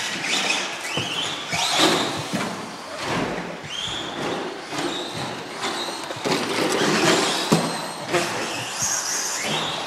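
Associated SC10 4x4 radio-controlled truck's electric motor and drivetrain whining in repeated rising bursts as the throttle is blipped, over the rattle and scrabble of the truck on the track.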